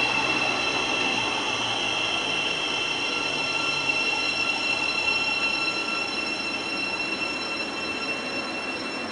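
Electric passenger train pulling away along the platform: a steady high-pitched motor whine over rumbling wheel and rail noise, slowly fading.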